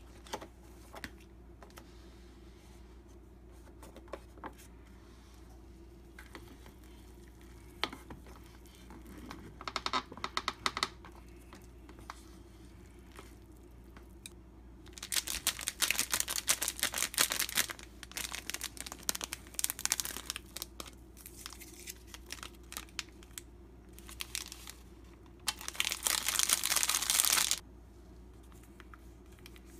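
Plastic sauce sachets from a Buldak Bokkeum-tang cup ramyeon crinkling and tearing as they are handled and opened, in several loud bursts. The longest comes near the middle, and a last one near the end stops suddenly.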